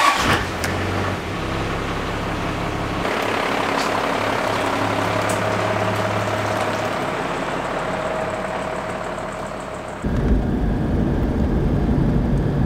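Toyota 60 Series LandCruiser engine starting at a turn of the key and then idling steadily. About ten seconds in it changes abruptly to the deep rumble of the truck driving on a sealed road, heard from inside the cab.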